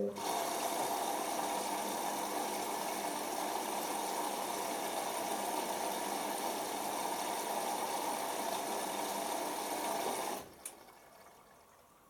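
Hoover Optima washing machine taking in water during its load-sensing phase: a steady rushing hiss of water filling the drum, cutting off abruptly about ten seconds in, followed by a light click.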